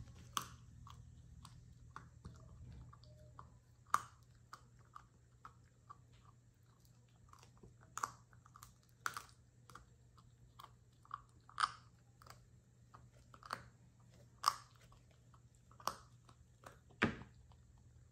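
Puppy chewing and crunching on a hard chew, with sharp cracks every second or two between quieter gnawing.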